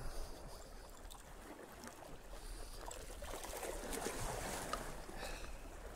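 Faint sea water washing and lapping against shoreline rocks, swelling a little midway.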